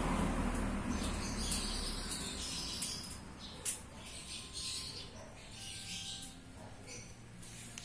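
Birds chirping in short, scattered calls, with a low rumble fading out over the first couple of seconds and a single click a few seconds in.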